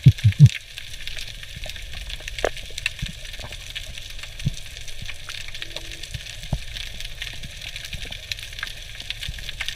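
Underwater ambience heard through a diving camera's housing: a steady crackle of small scattered clicks over a low rumble, with a quick cluster of loud thumps in the first half-second.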